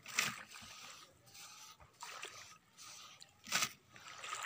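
Handfuls of beach sand scooped and pushed into a plastic drum, giving a few short gritty rushes, the loudest about three and a half seconds in.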